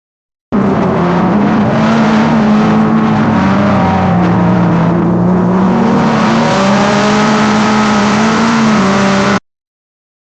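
Drag-racing car engine running loud, its pitch fairly steady with small wavers; it starts abruptly about half a second in and cuts off suddenly near the end.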